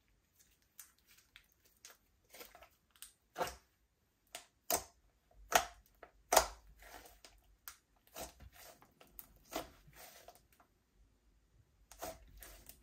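Glossy slime worked by hands, stretched, poked and pressed flat, giving irregular wet squishes and sharp pops, the loudest few about a third of the way in.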